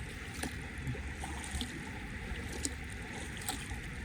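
Steady rush of river water, with a few small splashes dotted through it.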